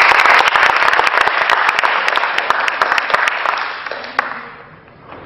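Audience applauding, loud at first, then thinning out and dying away about four and a half seconds in.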